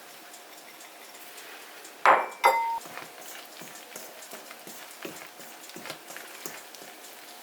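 Kitchen dishes and utensils being handled: two loud clattering knocks about two seconds in, the second ringing briefly like a clink, then light taps and clicks.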